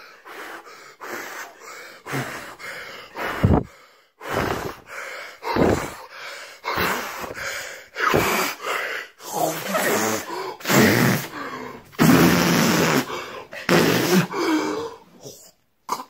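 A man gasping and breathing hard in irregular bursts, with some drawn-out vocal sounds in the second half: a wordless disgusted reaction to the taste of slime he has just licked.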